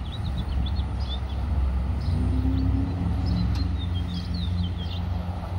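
Low, steady rumble of a car engine running, its hum firming into a steady tone about two seconds in, with small birds chirping repeatedly over it.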